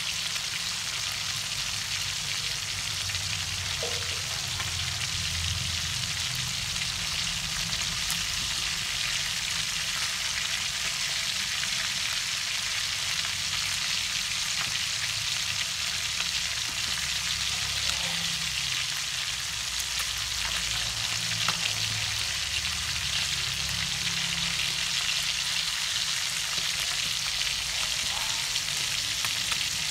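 Lizardfish pieces sizzling steadily as they fry in hot oil in a wok, with a few faint clicks.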